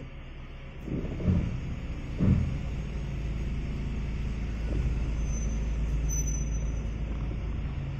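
Ford Escape running with a steady low rumble, with two short louder knocks about one and two seconds in; the owner records this as an abnormal noise.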